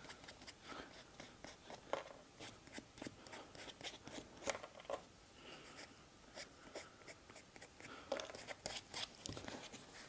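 Chalk rubbed over the excess glue around a fresh patch on a rubber bicycle inner tube: faint, irregular scratching and scraping with small clicks, a little stronger near the end.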